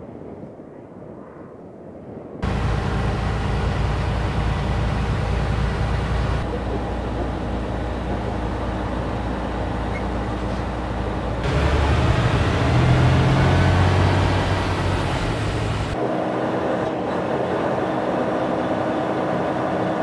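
Heavy truck on the move: a steady engine drone under tyre and road noise. The sound is edited in blocks that switch abruptly a few times, and it is louder with a shifting engine note for a few seconds about halfway through.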